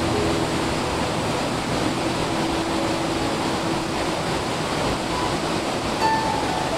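Steady rush of a waterfall pouring into a pool.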